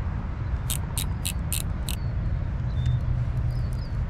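Steady low outdoor rumble, with a quick run of five sharp clicks about a second in and a few faint high chirps later on.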